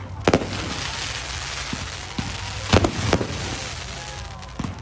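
Fireworks going off. A sharp bang is followed by a long crackling hiss with small pops, then two more loud bangs about three seconds in.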